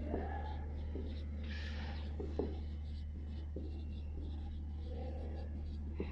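Dry-erase marker writing on a whiteboard: short scratchy, squeaky pen strokes with a few light taps. A steady low hum runs underneath.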